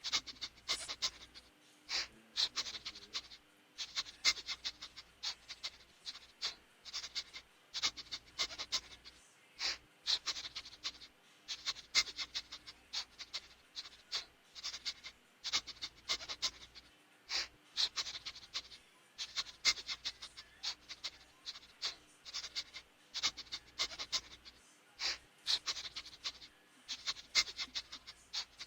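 A group of pet rats: short, high-pitched clicks and scratches coming irregularly, several a second.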